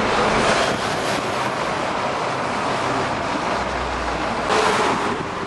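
Road traffic noise heard from inside a car in a queue of vehicles: a steady rush of engines and tyres from the vehicles alongside, swelling briefly near the end.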